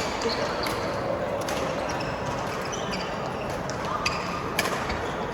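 Badminton rally in an indoor hall: a few sharp racket strikes on the shuttlecock, the clearest about four seconds in and again half a second later, over a steady background murmur of the hall.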